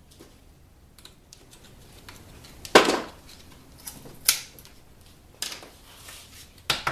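Sharp metallic clicks and knocks, about half a dozen at uneven spacing with the loudest near three seconds in, from working the servo cover and its snap ring on an automatic transmission case and from hand tools being handled.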